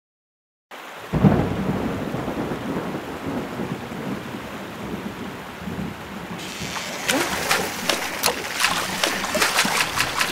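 Cartoon storm sound effects: a clap of thunder about a second in, then steady heavy rain falling on floodwater, with sharp drop patters growing denser in the second half.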